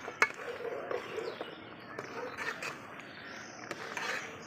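A pot of rice at a rolling boil, with a sharp knock about a quarter second in and a few lighter taps later, as salt is added and the pot is worked with a spoon. Birds chirp in the background.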